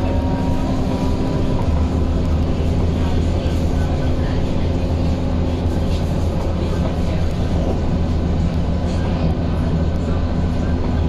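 Inside a Scania K230UB Euro V bus on the move: steady engine noise with a loud whine from the ZF automatic gearbox.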